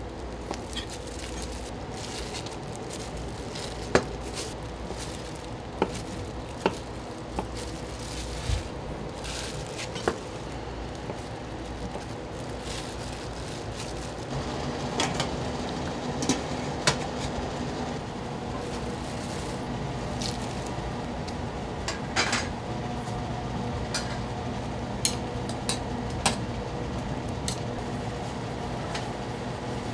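Kitchen utensils and dishes clinking and knocking at scattered moments over a steady hum, which gets a little louder about halfway through.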